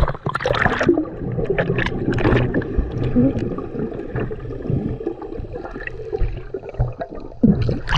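Sea water sloshing, splashing and gurgling close to the microphone while people swim, with many short irregular splashes and a steady low rumble underneath.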